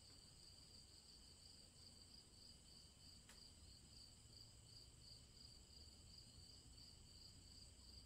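Faint, steady chorus of crickets chirping, an even pulsing trill with no pause, and a faint click about three seconds in.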